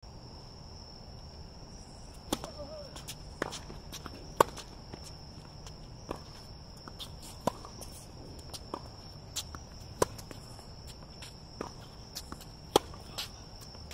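Tennis rally on a hard court: a serve, then racket strings striking the ball and the ball bouncing, heard as a dozen or so sharp knocks spaced about a second apart. A steady high insect trill, like crickets, runs underneath.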